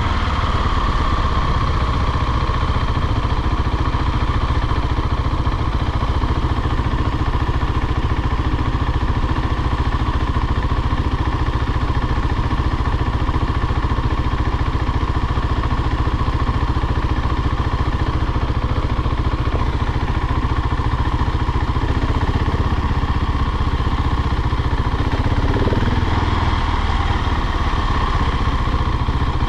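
KTM 690 SMC R's single-cylinder engine running steadily as the supermoto rides along at an even speed.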